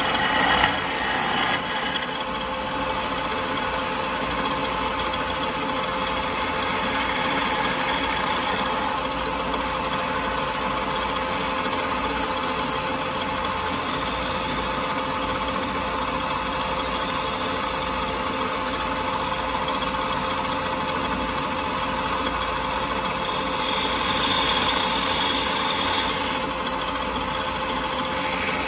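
Wood lathe running with a steady hum while a hand-held turning chisel cuts a spinning pine blank. The cutting noise swells briefly just after the start and again near the end.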